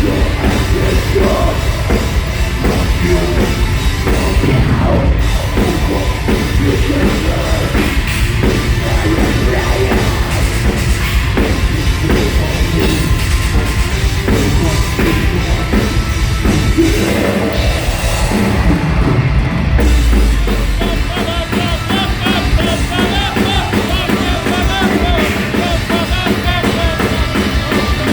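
Live metalcore band playing loud and fast, with distorted guitars, rapid drumming and shouted vocals. About 17 to 20 seconds in, a brief break sets a deep low hit apart, and then a fast guitar lead line rises and falls over the drums.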